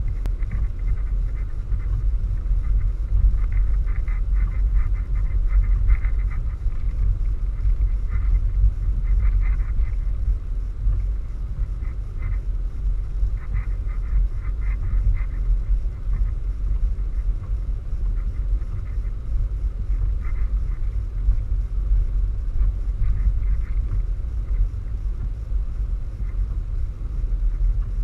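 Wind buffeting the microphone: a steady low rumble that rises and falls, with faint scattered higher ticks.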